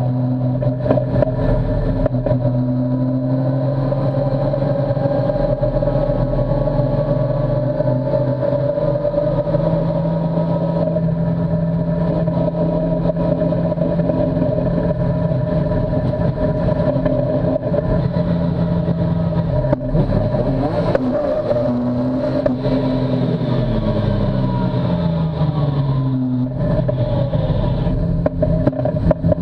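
Modified BMW S54 straight-six of a race car, heard from inside the cockpit, running at steady, moderate revs while the car moves slowly. About two thirds of the way through, the revs fall away in a downward glide, then steady again.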